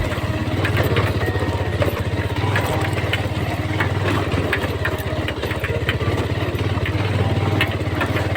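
Motorcycle engine running at low revs with a steady chugging pulse as the bike moves slowly over a rough dirt track, with scattered small clicks and knocks over it.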